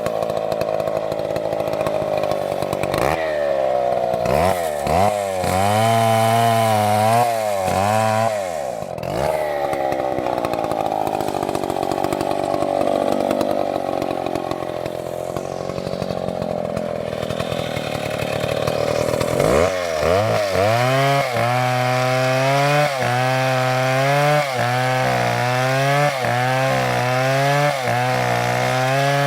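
Chainsaw engine running continuously while cutting wood. It alternates between long spells of a high, steady pitch and spells where the pitch drops and wavers, dipping about once a second, as the saw works through the cut.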